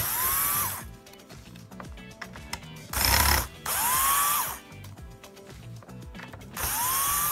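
Cordless electric screwdriver backing out screws from a circuit board in four short bursts, its motor whine rising in pitch as it spins up, then holding steady.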